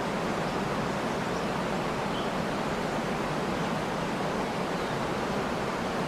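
Steady rush of water pouring over the Venta Rapid, a very wide, low river waterfall: an even roar of falling and foaming water.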